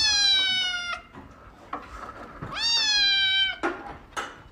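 A cat meowing twice: two long, drawn-out meows about a second and a half apart, each rising at the start and then holding.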